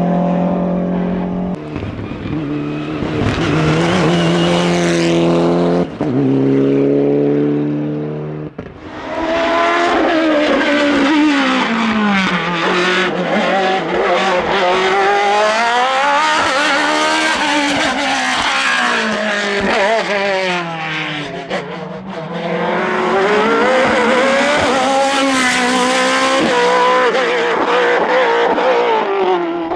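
Racing car engine at high revs on a hillclimb run. The pitch holds nearly level with a few steps for the first several seconds and dips briefly about eight seconds in. After that the revs rise and fall again and again through gear changes and corners.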